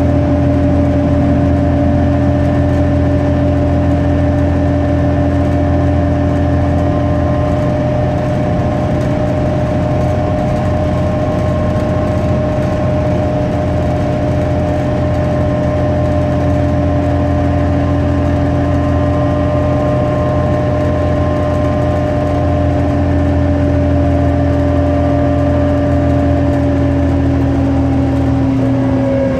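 New Flyer D40LF diesel city bus heard from inside the passenger cabin while driving at a steady speed: a constant low engine drone with a steady whine riding above it.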